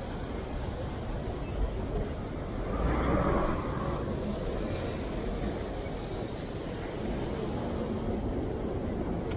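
City street traffic noise: a steady rumble of passing vehicles, with a louder hiss swelling up about three seconds in, like a truck's air brakes, and a few faint high squeaks.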